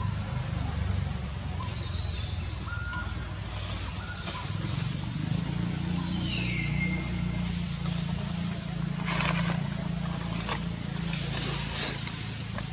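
Outdoor morning ambience: short bird chirps and whistles every couple of seconds over a steady high drone and a low steady rumble. A few sharp clicks near the end, the loudest about a second before the end.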